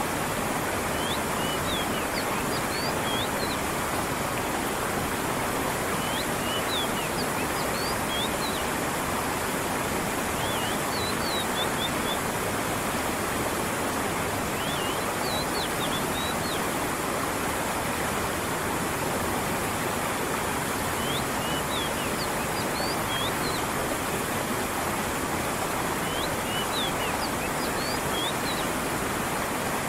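Steady rush of a stream's running water, with a small bird chirping in short clusters of quick high notes every few seconds.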